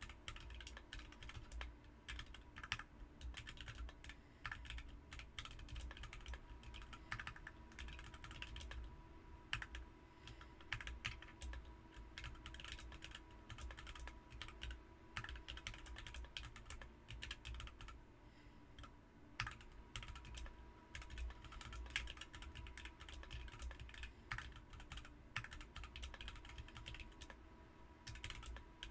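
Typing on a BM43 40% mechanical keyboard fitted with Ms Piggy switches: quick, continuous key clacking in runs, with brief pauses between bursts.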